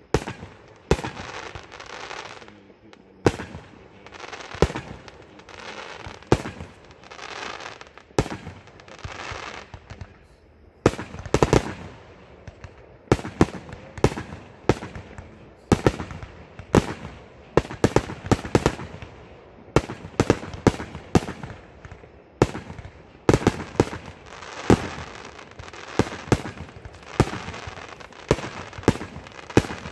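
Aerial fireworks bursting overhead: an irregular run of sharp bangs, coming faster in the second half, with crackling between them.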